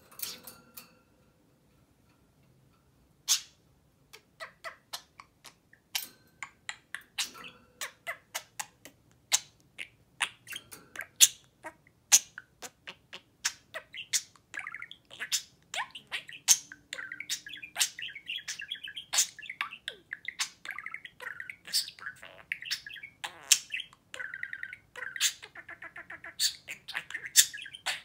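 Budgerigar chirping: a few sharp single chirps at first, coming faster and building after about ten seconds into a near-continuous warbling chatter.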